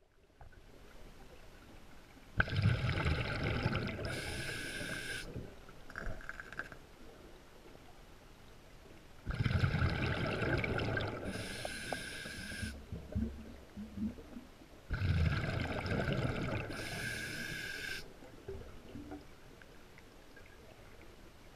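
A scuba diver breathing through a regulator underwater: three breaths about six seconds apart, each a rush of hissing air and gurgling exhaust bubbles that starts suddenly and lasts about three seconds.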